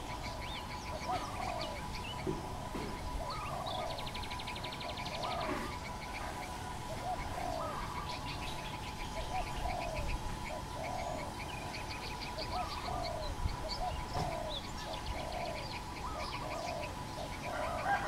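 Spotted dove cooing: low notes repeated evenly, about one every 0.7 seconds, under scattered high chirps from small birds and a steady thin tone.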